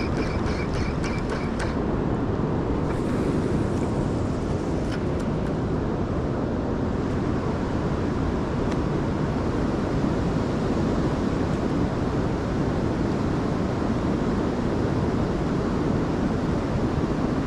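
Steady rushing of river water flowing through a riffle, an even, unbroken wash of sound. A brief run of quick high chirps comes in the first two seconds, and a few faint clicks follow.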